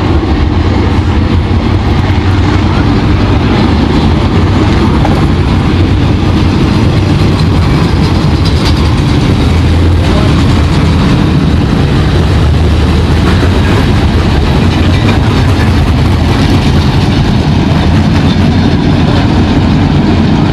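A field of dirt late model race cars' V8 engines rumbling together at low, steady speed, the cars rolling around the track under caution.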